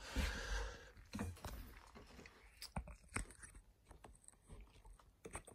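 Faint handling noises: a short rustle at the start, then scattered light clicks and knocks as metal tooling is touched and moved on a tabletop.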